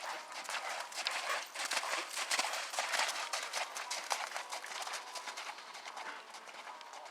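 Hoofbeats of a ridden thoroughbred horse, a quick series of thuds that is loudest in the first half and fades away toward the end.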